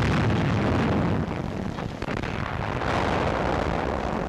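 Newsreel battle sound effects: a continuous rumble of explosions with no clear single blasts, loudest at the start and swelling again about three seconds in.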